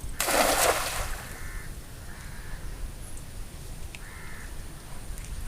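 A thrown cast net landing in the water with a short splash just after the start, the loudest sound; crows caw three times afterward.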